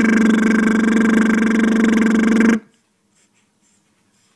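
An adult's voice making a long, steady buzzing 'brrr' noise on one pitch, which cuts off suddenly about two and a half seconds in. After that there are only faint small sounds near silence.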